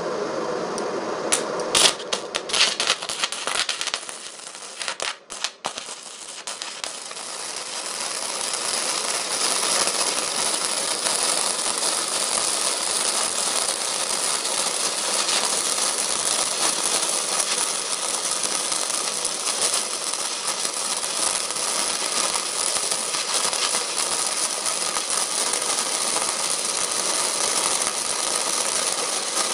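MIG wire-feed welding arc from a 120 V Sefaspe 135 A inverter welder laying a bead on thin steel. It sputters and crackles in fits for the first few seconds, then settles about eight seconds in into a steady, dense crackle that gives a nice bead.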